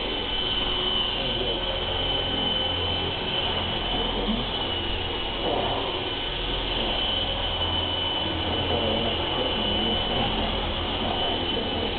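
Twister V2 radio-controlled helicopter running under power: the electric motor and gears give a steady high whine over the whir of the main rotor, the whine's pitch wavering slightly.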